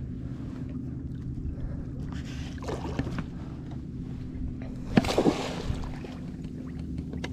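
Electric trolling motor humming steadily, pushing a small skiff, with a sudden sharp knock and splash about five seconds in.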